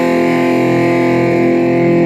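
Background music: a sustained, distorted electric-guitar chord held steadily.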